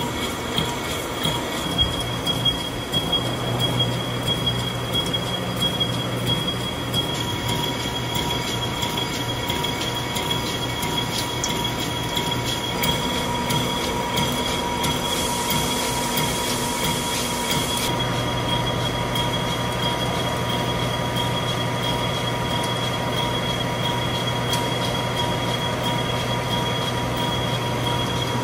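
CNC horizontal boring machine cutting the steel bearing bore of a jaw crusher frame: a steady high-pitched squeal from the boring bar's tool over a low machine hum. There are scattered clicks in the first few seconds and a stretch of hiss about halfway through.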